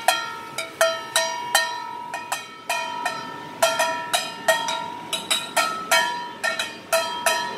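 A metal utensil repeatedly striking an empty stainless steel mixing bowl, about three clanks a second at an uneven pace, the bowl ringing with a bell-like tone after each strike.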